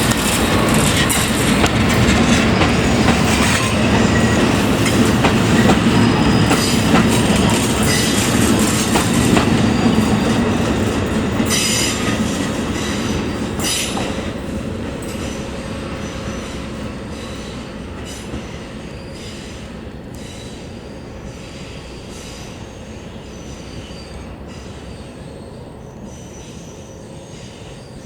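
A train passing close by, its wheels squealing and clattering over the rails, with a few sharp high squeals about halfway through; the sound then fades steadily as the train moves away.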